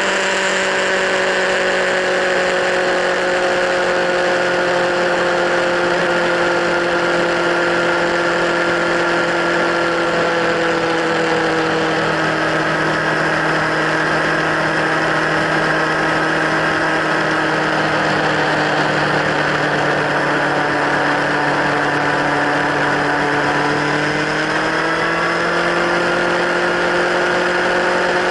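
Kawasaki Z1000 inline-four engine running through LeoVince slip-on exhausts, a steady exhaust note. Its pitch sinks slowly over the first twenty-odd seconds, then climbs quickly about 24 seconds in and holds at the higher pitch.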